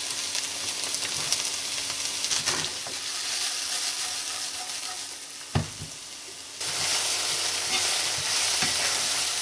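Chopped white part of green onion sizzling in hot olive oil in a pan, being sautéed until translucent. There is a single knock about five and a half seconds in, and the sizzle grows louder about a second later.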